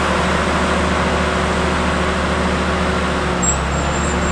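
Rough terrain container handler's diesel engine running steadily under load as its boom and spreader are raised, with a thin high squeal near the end.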